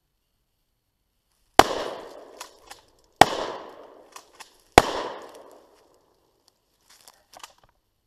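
Three gunshots from a shoulder-fired long gun, about a second and a half apart. Each shot is a sharp crack that trails off in an echo, followed by a few fainter clicks.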